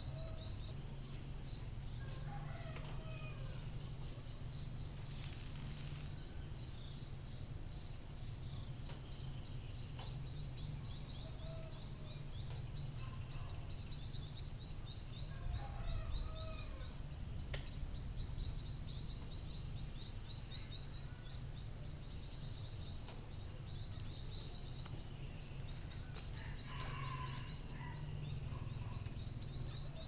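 Scaly-breasted munia calls played as a decoy track for luring birds: a rapid, continuous run of short high chirps, joined now and then by a few lower calls.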